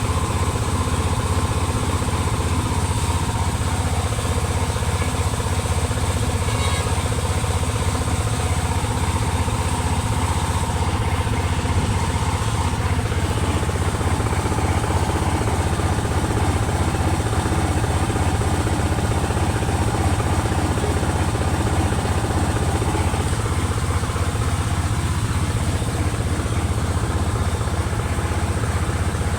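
Howo 380 truck's diesel engine idling steadily, a fast, even low rumble with no change in speed.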